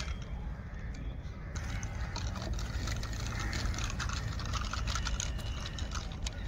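Outdoor ambience dominated by wind rumble on the microphone, with a few faint clicks.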